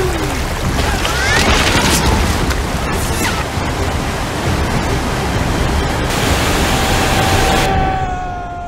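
Rushing water of a large waterfall, a loud, steady noise. Near the end a held tone comes in and sinks slightly in pitch as the rush thins.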